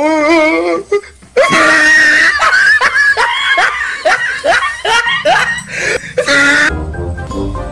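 Loud, shrieking human laughter: a run of rising 'ha' sounds about two a second after a short pause, breaking off near the end into background music.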